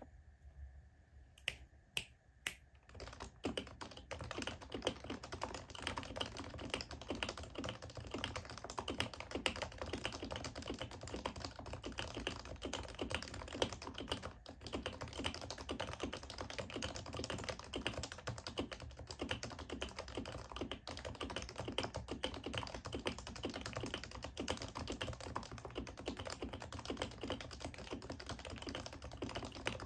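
Typing on an HHKB Pro 2 keyboard with Topre switches, its stock domes lubed with Tribosys 3204 and its stabilizers lubed with dielectric grease. About a second and a half in come three sharp clicks half a second apart, then a steady, fast run of keystrokes.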